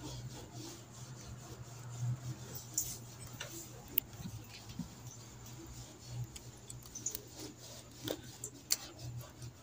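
Faint, scattered metallic clicks and scrapes as a small snap ring is worked with pliers into its groove on a bearing in a Toyota Fortuner manual gearbox's bearing plate.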